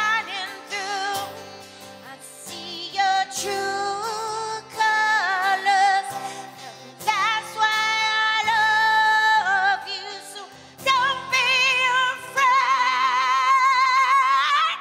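A woman singing live over sustained instrumental accompaniment, her voice wavering with vibrato. Near the end she holds one long high note, then stops sharply.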